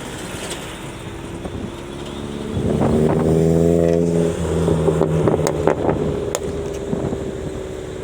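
Pickup truck engine rumbling, swelling sharply about two and a half seconds in, loudest for a couple of seconds, then easing off toward the end, with a few sharp clicks midway.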